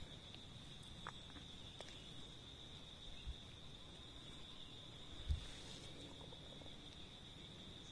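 Faint, steady high-pitched insect drone held at one pitch, with a couple of soft low thumps about three and five seconds in.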